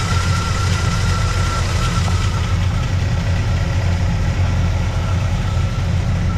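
Squarebody Chevy truck's engine idling steadily through its headers, just repaired after a broken header tube: the exhaust leak is gone and it sounds much better.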